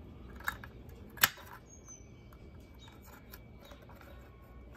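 Home-modified multitool can opener working at a tin can's lid: a few sharp metal clicks, the loudest about a second in, then faint scraping ticks. The reshaped cutter is catching poorly instead of cutting smoothly.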